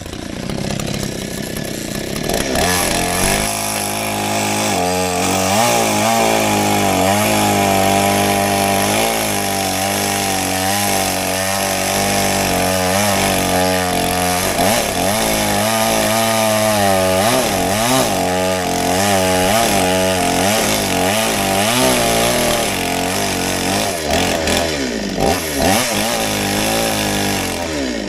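Spear & Jackson SPJS4546 petrol chainsaw's two-stroke engine running at low speed, then revved up about two and a half seconds in and cutting through a log, the engine note dipping and rising again and again as the chain bites into the wood.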